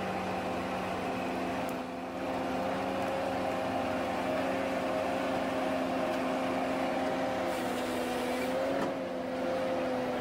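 Ponsse Ergo forestry harvester running at a steady pitch, its diesel engine and hydraulics giving a constant hum. The level dips briefly about two seconds in and again near the end.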